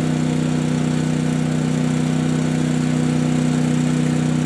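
Portable generator and air compressor running with a steady drone, the machinery used to charge the air cannon.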